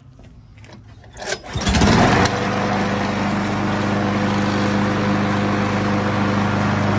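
Briggs & Stratton single-cylinder lawn mower engine on a Craftsman 6.75 mower starting up: it catches about a second and a half in, briefly at its loudest, then settles into steady running. It starts on a freshly fitted new spark plug after heavy priming.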